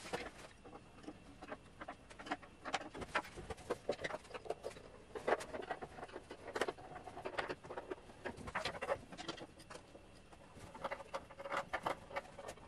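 Light, irregular clicks, taps and knocks of a kitchen drawer being handled and fitted into a base cabinet, the drawer box and its front knocking and clicking as they go onto the runners.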